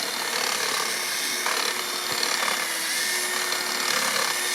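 A power tool cutting into the dead olive tree's wood, a steady grinding-rasping noise, with a steady hum of honeybees buzzing around the opening.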